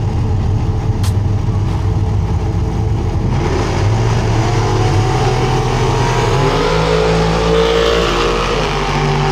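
Drag-racing cars idling at the starting line, then a little over three seconds in launching at full throttle. The engines rev hard as the cars accelerate away down the strip.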